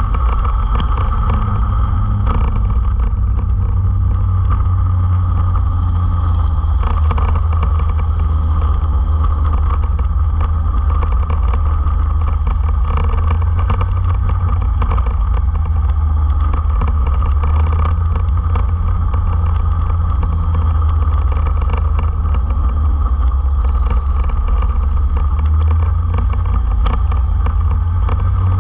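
Racing kart engines running at speed in a close pack, heard from a camera mounted low on a kart, with a fairly steady engine note and wind rushing past.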